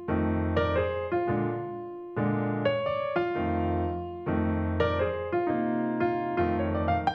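Background piano music: notes and chords struck roughly once a second, each left to ring and fade.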